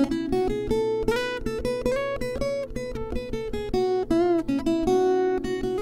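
Capoed acoustic guitar fingerpicked, a melody of single plucked notes over bass notes; one note wavers in pitch about four seconds in.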